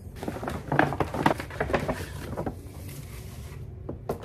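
Paperboard box being handled and closed by hand: a run of rustling, crinkling and light tapping for about three seconds, then a single sharp tap near the end.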